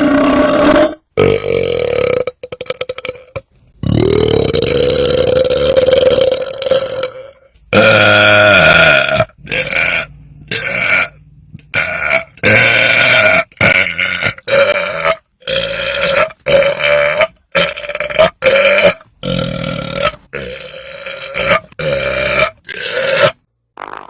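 A person belching loudly, one belch after another: two long drawn-out belches in the first seven seconds, then a quick run of many short belches, each cut off sharply.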